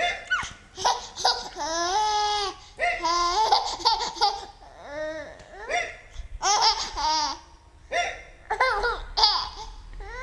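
A baby laughing at hiccups in about half a dozen high-pitched bursts of squealing laughter, with short sharp sounds between some of the laughs.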